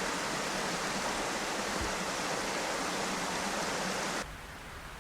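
Creek water rushing in a steady, even roar. About four seconds in it cuts off abruptly, leaving a much fainter hiss.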